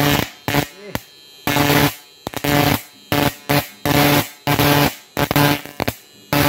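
An IGBT electric fishing-shocker inverter, running off a 12 V battery, arcing as its output wire is struck again and again against a steel plate in a test of its output power. It gives about a dozen loud, buzzing crackles of uneven length, each under half a second.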